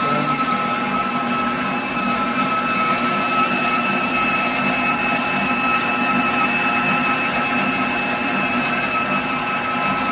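COOKLEE 660 W stand mixer running steadily, its motor giving a constant high whine as the beater combines butter, sugar and eggs in the bowl.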